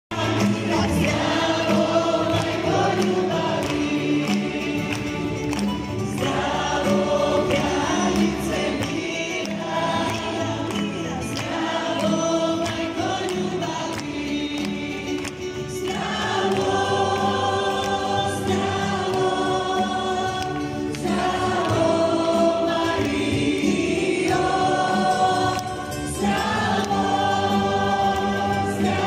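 A congregation singing a worship song together with a live band, amplified through PA loudspeakers in a large hall.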